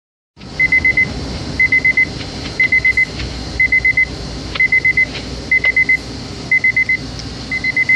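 Weather radio receiver's alert alarm: a high electronic beep in quick sets of four, repeating about once a second, over steady radio hiss and rumble. It is set off by the weekly Weatheradio Canada test alert.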